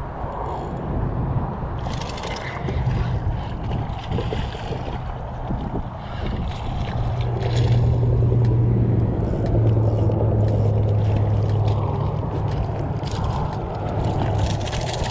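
Hooked ladyfish splashing and thrashing at the surface as it is reeled in against the rocks, with repeated splashes from about two seconds in. A steady low hum runs underneath and swells about halfway through.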